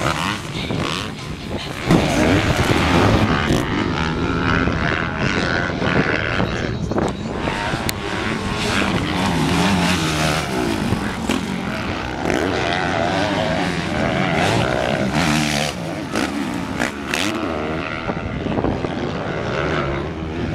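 Several 250 cc four-stroke motocross bikes racing by, their engines revving up and down through the gears and jumps; the sound gets suddenly louder about two seconds in as bikes come close.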